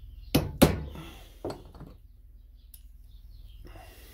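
Hammer knocks on a Mercedes auxiliary heater water pump, knocking loose the pressed-in metal that holds its bearing. There are two sharp knocks close together, then a lighter one about a second later and a few faint taps, each with a brief ring.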